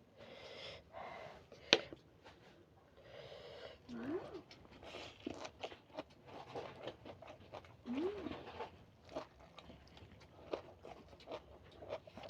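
A person eating spicy noodles: two sharp breathy exhales, then a run of small chewing and mouth clicks. Two short rising hums about four and eight seconds in.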